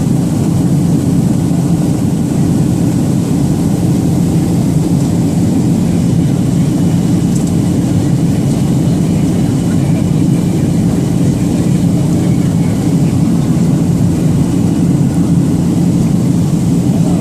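Steady jet airliner cabin noise: a loud, even drone of the Boeing 737's engines and the air rushing past the fuselage, heard from a passenger seat, with no change in level.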